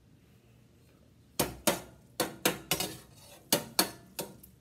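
A spoon stirring macaroni in a stainless steel pot, knocking against the pot's sides and rim in a run of sharp clinks, two to three a second. The clinks start about a second and a half in.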